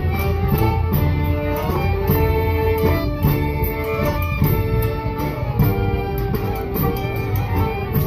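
Acoustic street band playing a tune: accordions, clarinets and fiddles carry the melody over a bass drum and snare drum keeping a steady beat.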